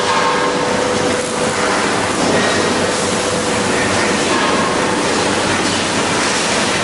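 Loud, steady machinery noise in a welding shop, with a steady hum that fades about a second and a half in.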